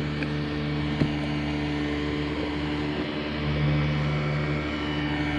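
A boat motor running steadily with an even hum, its tone shifting slightly about three and a half seconds in; a single small click about a second in.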